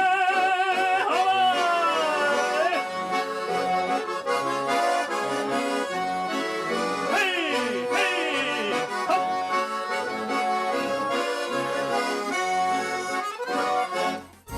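Garmon, the Russian button accordion, playing the instrumental close of a folk song, full chords over a moving bass. It stops abruptly near the end.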